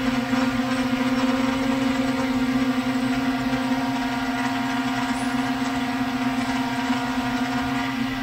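Multirotor drone's propellers and motors humming at one steady pitch, even and unbroken.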